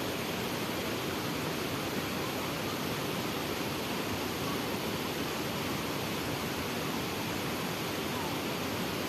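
Steady, even rushing noise with no distinct events, such as fast-flowing water or wind.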